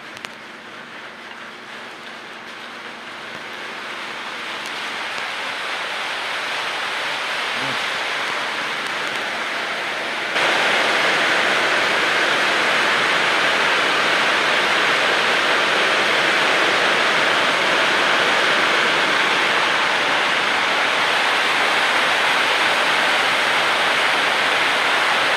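Heavy rain falling, a steady hiss that builds over the first few seconds and then jumps suddenly louder about ten seconds in.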